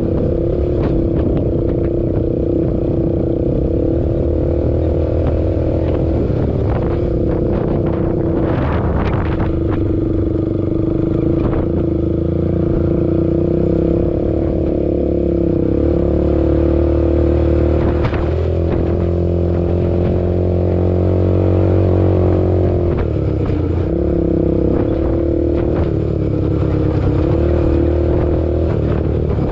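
ATV engine running steadily while riding, its pitch shifting up and down with the throttle. A few sharp knocks and rattles sound over it.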